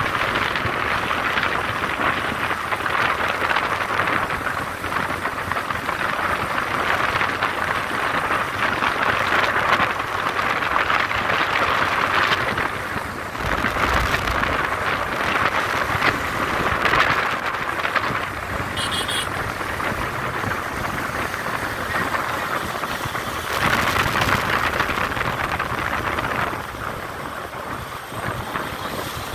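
Wind rushing over the phone's microphone on a moving motorcycle, a steady gusty noise with the engine running underneath. A brief high-pitched beep sounds about two-thirds of the way through.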